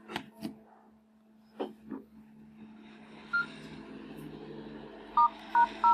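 Samsung B310E feature phone's keypad beeping as digits are dialled: one short beep a little after three seconds in, then a few quick, louder beeps near the end. A few sharp handling clicks come in the first two seconds over a steady low hum.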